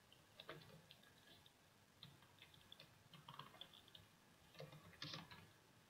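Faint computer keyboard typing: irregular key clicks as a name is typed out, with a slightly louder cluster of keystrokes about five seconds in.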